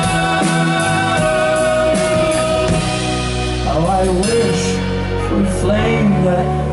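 Live rock band playing, with a man singing long held notes over sustained chords.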